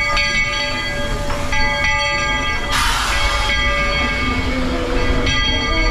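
Walt Disney World Railroad steam train standing at the station: a steady mix of held tones with short breaks, and a brief hiss of escaping steam about three seconds in.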